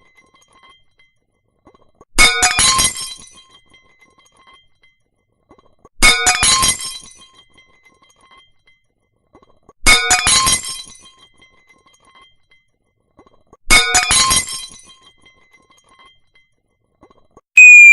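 Breaking-plate sound effect played four times, about four seconds apart: each time a sudden crash of shattering crockery followed by scattered tinkling of pieces. Just before the end a high whistle falling steadily in pitch begins.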